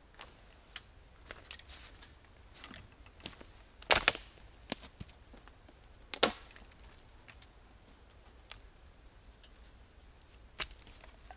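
Dry firewood being broken: a series of sharp wooden cracks and snaps, the two loudest about four and six seconds in, with lighter clicks between.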